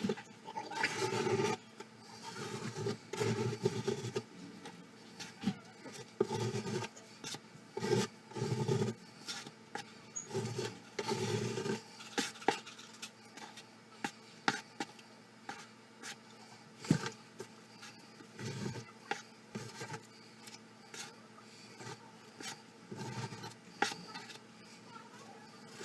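Putty knife spreading and scraping spackle, in irregular short strokes with occasional sharp clicks of the blade against the surface or the container.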